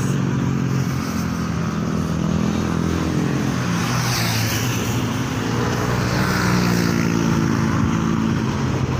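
Road traffic passing close by: cars and motorcycles running, with one engine growing louder and rising in pitch about six to seven seconds in.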